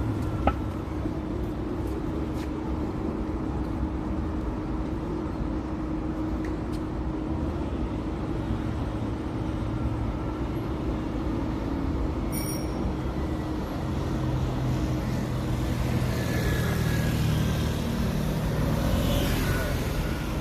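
City street traffic noise, a steady rumble of passing vehicles that grows somewhat louder in the last few seconds as a vehicle passes.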